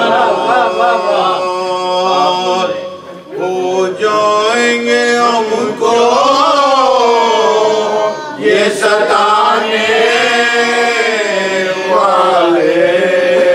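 Male voices chanting an Urdu nauha, a Shia lament, with long held, wavering notes and a short break for breath about three seconds in.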